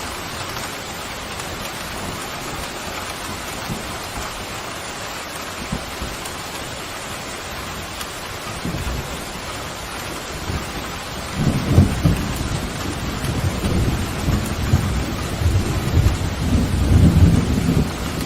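Steady heavy rain with thunder: a low rumble of thunder builds about two-thirds of the way through and grows louder, rolling on to the end.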